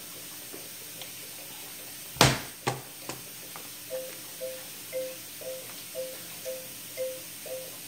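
Children's toy laptop sounding short electronic beeps as its keys are pressed: the same quick two-note blip, repeated about twice a second from about four seconds in. A loud knock a little after two seconds, followed by a couple of lighter taps.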